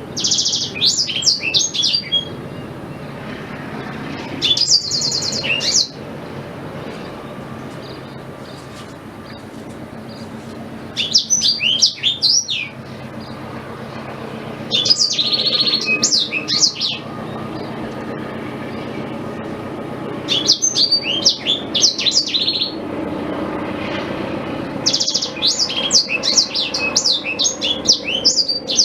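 Blackthroat (black-throated canary) singing in about six separate bursts of rapid, high-pitched twittering trills, each lasting one to two seconds with pauses of a few seconds between them.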